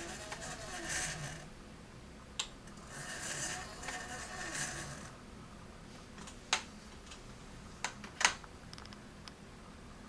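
Small four-wire stepper motor turning a camera lens's focus ring through a toothed gear, running twice with a steady whine, each run about two seconds long. A few sharp single clicks follow in the second half.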